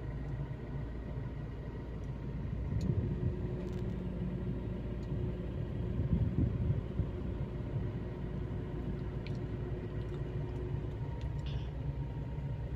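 Steady low rumble of a car's engine and road noise heard inside the cabin as the car moves slowly.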